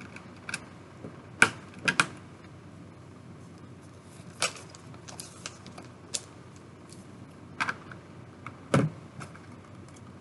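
Lego bricks handled by hand: scattered sharp plastic clicks and taps at irregular intervals, loudest a pair about one and a half to two seconds in, with a duller knock near the end.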